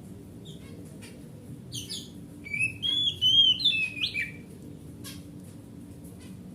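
Oriental magpie-robin (kacer) singing: a few short chirps, then a loud phrase of clear whistled notes and quick chirps from about two to four seconds in, over a low steady hum.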